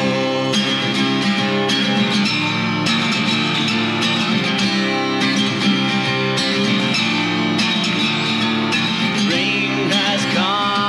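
Instrumental passage of a song: acoustic guitar strumming over long held notes, between sung verses.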